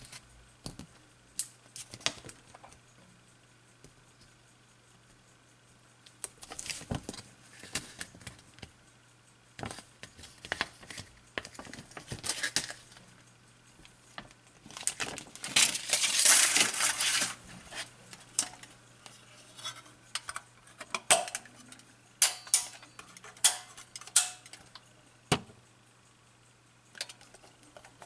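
Handling noises of a developed 120 roll-film strip and its plastic spool: scattered clicks, taps and rustles, with a longer crackling rustle about halfway through as the film slides and flexes.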